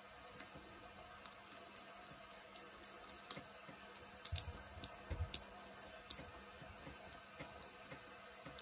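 Faint, irregular light clicks and taps from hands with long nails stroking upward over the face and neck in alternation, with a cluster of clicks and a few soft thumps about four to five seconds in.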